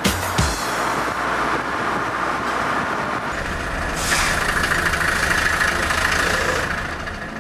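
City street traffic noise: vehicle engines running with a steady rumble, and a louder hiss rising about four seconds in and fading near the end.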